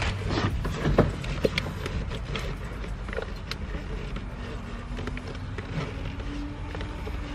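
Scattered small clicks and knocks of hands handling a car battery's cable and terminal hardware in its plastic tray, over a steady low background rumble.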